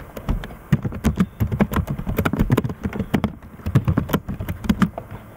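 Typing on a computer keyboard: an uneven run of quick keystrokes, several a second, that stops near the end.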